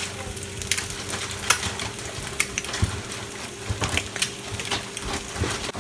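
Eggs frying in a skillet: a steady sizzle broken by frequent sharp pops and crackles of spitting fat.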